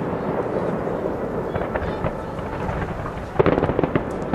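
Fireworks display: a continuous rumble of shell bursts, with a rapid cluster of sharp cracks about three and a half seconds in.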